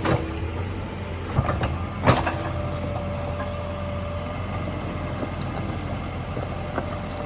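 JCB 3DX backhoe loader's diesel engine running steadily, with a few sharp metallic clanks in the first two seconds.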